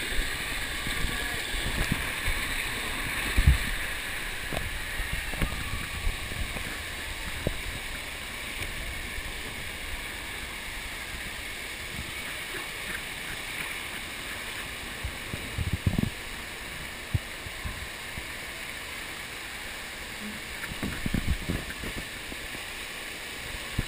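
Water rushing and sloshing down a fibreglass water slide as a rider slides through it, heard up close from a camera on the rider. A few dull thumps come as the rider knocks against the slide: one a few seconds in, one past the middle, and a short cluster near the end.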